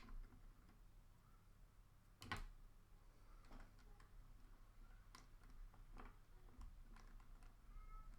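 Faint, scattered clicks and taps of small plastic toy-car parts being handled and fitted back in place, the loudest a little over two seconds in.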